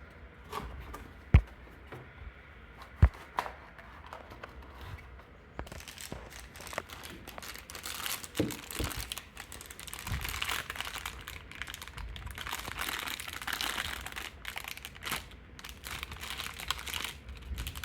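Two sharp knocks in the first few seconds. Then, from about six seconds in, packaging is crinkled and torn steadily as it is unwrapped.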